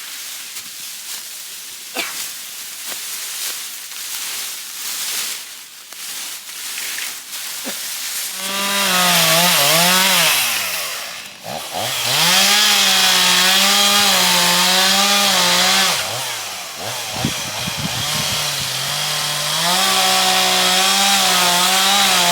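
Chainsaw at full throttle cutting into a tree, its pitch sagging and recovering as the chain bogs in the wood, with two brief drops in revs along the way. Before the saw comes in, about a third of the way through, there is only quieter rustling and crackling.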